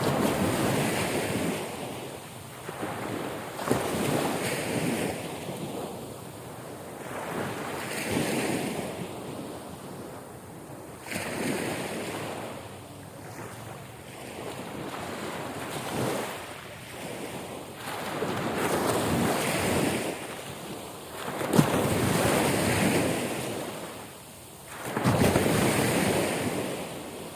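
Ocean waves breaking and washing up the shore, the surf swelling and fading every few seconds, with wind buffeting the microphone.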